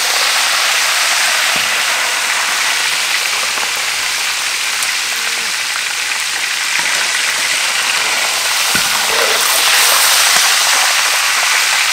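Hot oil sizzling steadily as whole fish deep-fry in a wok, swelling slightly about ten seconds in.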